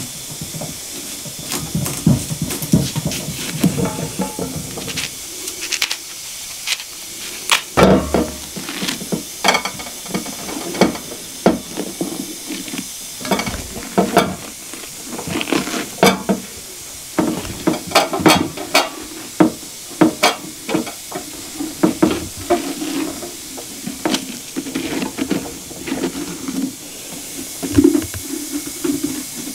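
Seeds and stringy pulp being scooped by hand out of a raw pumpkin: irregular wet scrapes and squelches, with sharp little clicks as the scraps drop onto an enamel plate.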